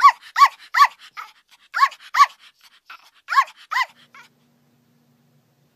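Small dog yapping: about seven sharp, high-pitched barks in quick groups of three, two and two, with fainter yips between, stopping a little past four seconds in.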